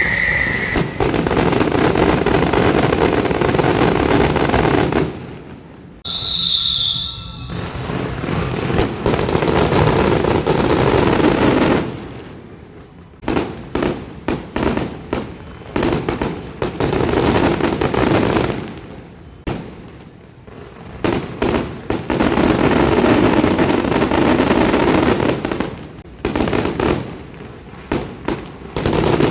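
Fireworks and firecrackers going off in dense, rapid barrages of bangs, each run lasting several seconds before it breaks off and starts again.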